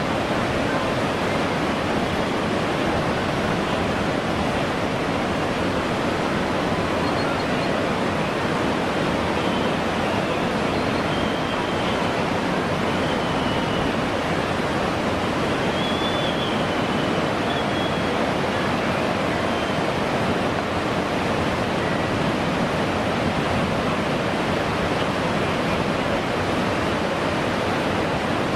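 Whitewater rapids rushing steadily: a continuous, even noise of churning water.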